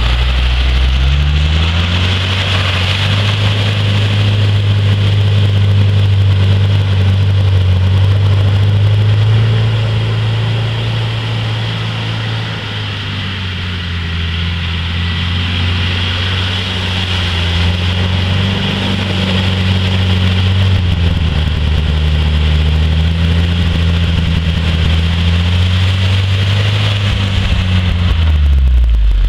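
A Suzuki Vitara (Escudo) 4x4's engine driving off-road. The engine note rises and falls several times as it is revved up and eased off, and it dips a little in loudness around the middle.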